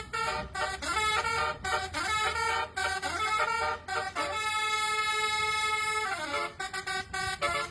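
Bus's basuri telolet musical multi-tone horn playing a quick tune of short changing notes, then one long held chord from about four seconds in that slides down in pitch near six seconds, followed by more short toots.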